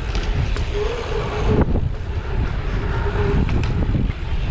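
Wind rushing over the microphone and mountain bike tyres rolling fast over a pumptrack, a steady low rumble with a brief humming tone twice.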